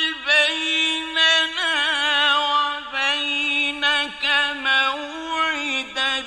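A male reciter chanting the Quran in the melodic mujawwad style: one voice holding long, ornamented notes with vibrato, with a few short breaks between phrases.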